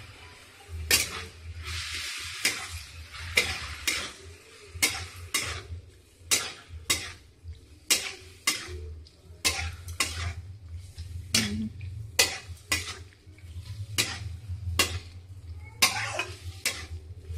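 Metal spatula stirring boiled vegetables through sizzling masala in a kadhai, scraping and knocking against the pan about twice a second.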